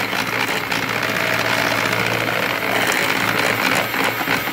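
Electric hand mixer running steadily, its beater whisking a thin milky mixture in a pot, with a few light clicks near the end.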